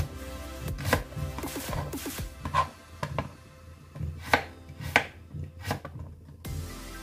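Kitchen knife chopping onion and garlic on a plastic chopping board: irregular sharp knocks of the blade against the board, the loudest a handful of strokes past the middle.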